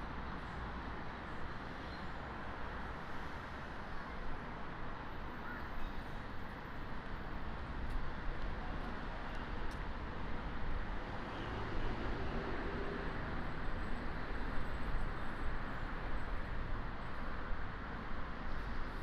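Outdoor city street ambience: a steady wash of traffic noise, a little louder in the second half.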